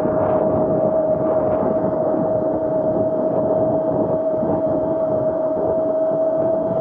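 Razor SX500 electric dirt bike cruising at a steady speed: its electric drive whines at one constant pitch over the rushing noise of wind and knobby tyres on brick paving.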